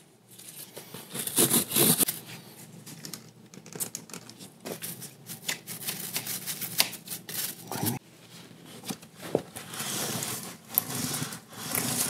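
Nylon chain brush scrubbing a Honda Rebel 500's kerosene-wet drive chain, an irregular scratching and rustling, then a rag rubbing along the chain near the end.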